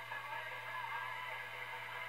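Faint music from a broadcast station playing through the 1932 Tiffany Tone radio's speaker, over a steady low hum.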